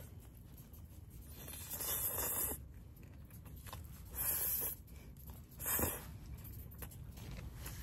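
Person slurping cold mixed noodles (bibim-myeon) three times in short hissy pulls, with quieter chewing between.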